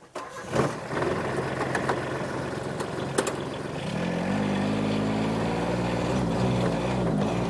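A vehicle engine starts up and runs. About four seconds in its note deepens and rises and falls as the engine speed changes.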